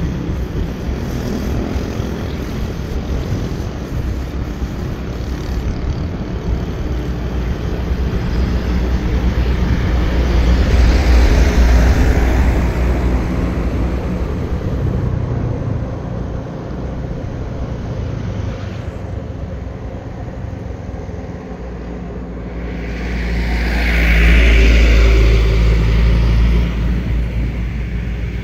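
Motorbike engine running as the bike rides along, with wind rushing over the microphone; the noise swells twice, about ten seconds in and again near the end.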